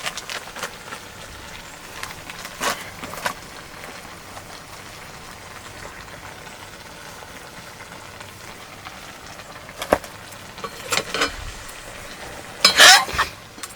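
Chicken curry frying in a pot, a faint steady sizzle broken by a few sharp knocks. Louder clattering and scraping come near the end.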